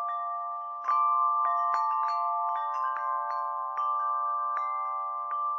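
Chiming intro music: bell-like struck notes in a wind-chime style, ringing over a held chord, with a louder strike about a second in.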